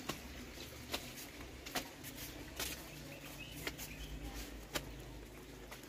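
Footsteps while walking, one sharp step about every second, over a low steady outdoor background.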